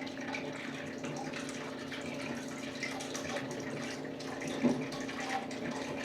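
Steady background sound like running water, with a constant low hum under it and one soft knock about two-thirds of the way through.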